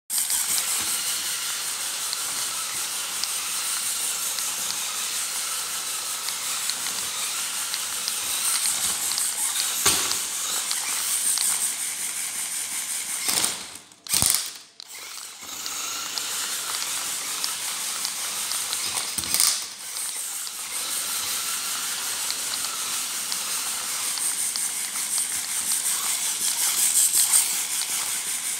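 Steady whirring of a small mechanism with fast ratcheting ticks. A sudden loud burst comes about 14 seconds in, as the LEGO pneumatic flipper fires.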